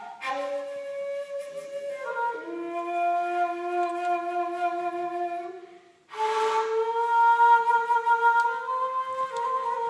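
Shakuhachi, an end-blown bamboo flute, playing a slow interlude of long held notes, stepping down in pitch over the first phrase. The phrase breaks off for a breath about six seconds in, then the flute comes back with a breathy attack on a long sustained higher note.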